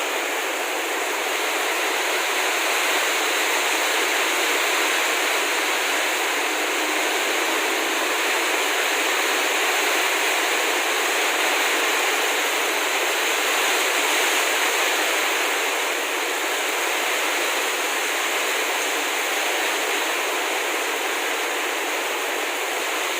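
Heavy tropical downpour: a steady, unbroken hiss of rain pouring down.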